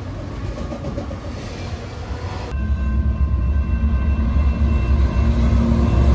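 Diesel locomotive running with a steady low engine hum, the sound changing abruptly about two and a half seconds in and then growing louder.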